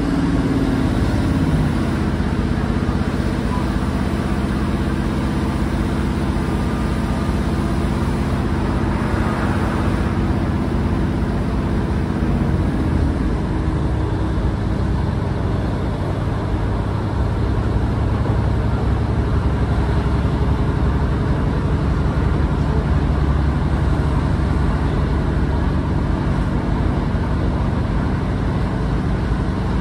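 Class 150 Sprinter diesel multiple unit's underfloor diesel engine running under power, heard from inside the carriage with wheel and rail noise. The engine note drops near the start and shifts again about twelve seconds in, then settles into a steady low drone.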